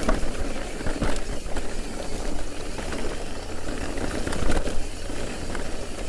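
Giant Reign E+ e-mountain bike running over a rough dirt trail: steady tyre-on-gravel noise with many small rattles and knocks from the bike.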